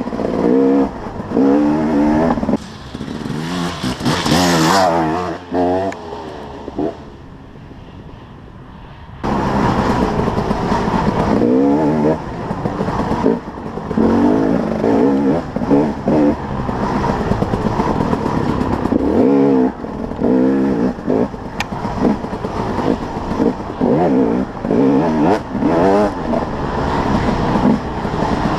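2011 KTM 300 XC-W's two-stroke single-cylinder engine revving up and down over and over as the dirt bike is ridden. It drops back to a quieter stretch about six seconds in, then cuts sharply back to full revving about three seconds later.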